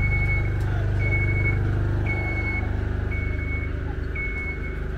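Motion alarm of a Genie GS-4069 BE scissor lift: five steady high beeps about a second apart, each about half a second long, over a steady low engine hum.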